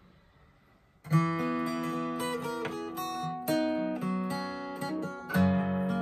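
Steel-string acoustic guitar being fingerpicked, starting about a second in after a moment of near silence: a run of single plucked notes ringing over one another.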